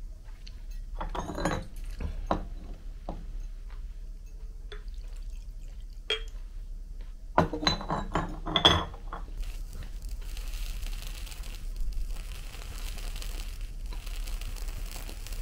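Ceramic clinks as the lid of an earthenware pot and a small cup are handled, the loudest a quick cluster about eight seconds in. Then a piece of dried squid held over a portable gas burner's flame crackles and sizzles steadily, like listening to an old record.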